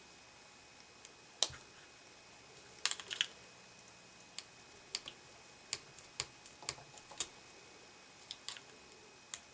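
Irregular small sharp clicks and taps of a tool working at the parts of a cut-open headphone jack plug, prying at the center contact, with a cluster of clicks about three seconds in.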